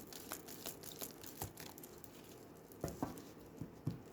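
Oracle cards being handled and shuffled: faint, irregular soft clicks and rustles of card on card, with a couple of louder taps near the end.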